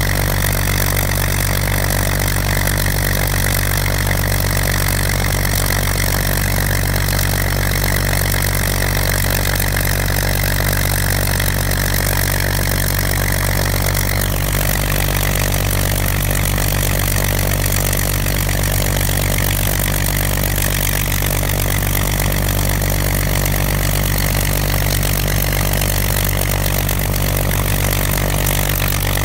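Rolls-Royce Griffon V12 engine of a Spitfire FR XIV running steadily on the ground, its five-bladed propeller turning, the aircraft standing before taxiing.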